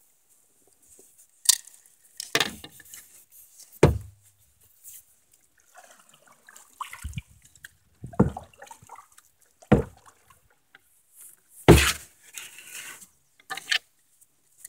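A string of separate knocks and short splashy sounds, irregularly spaced a second or two apart, from water and fishing gear moving about in a canoe. The loudest come about four seconds in and near the end.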